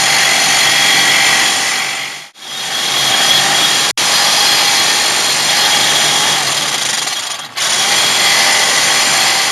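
Reciprocating saw with a new fine-toothed blade cutting through a steel wheel stud, a loud continuous rasp. It stops briefly a little over two seconds in and again about three-quarters of the way through.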